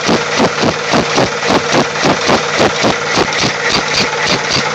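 Eager-1 four-stroke engine converted to run on compressed air, with a hole drilled in the cylinder wall as its exhaust port, running steadily and turning all the way round. It gives an even rhythm of air puffs, about five a second.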